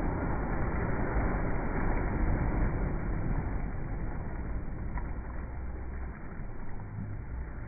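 Small sea waves breaking and washing up onto the sand at the shoreline, a steady rush of surf that is loudest in the first few seconds and eases after that.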